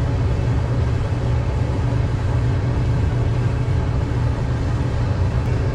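Whirlpool electric clothes dryer running on a test after a new thermal fuse and heating element were fitted: motor and tumbling drum giving a steady low hum, running smoothly with no odd noises.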